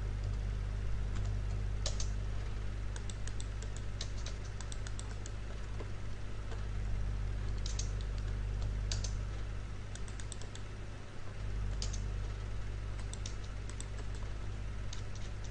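Computer keyboard being typed in short runs of keystrokes with pauses between, over a steady low hum.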